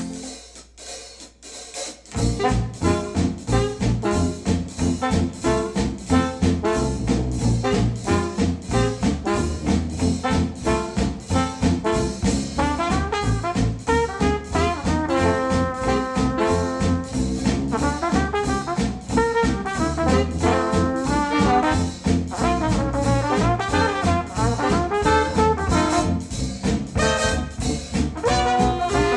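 Music with brass and a steady beat played back through Wharfedale Denton 80th bookshelf speakers driven by a Denon AVR-X1600H receiver. It starts quietly and the full band comes in about two seconds in.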